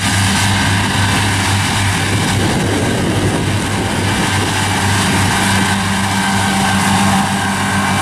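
Farm tractor engine running steadily while it pulls front- and side-mounted disc mowers through grass: a steady low hum over an even mechanical whirr.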